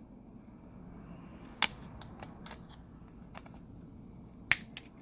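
Plastic back cover clips of a smartphone snapping loose as a pick is slid around the edge to pry the cover off: two sharp clicks, about a second and a half and four and a half seconds in, with several fainter ticks between.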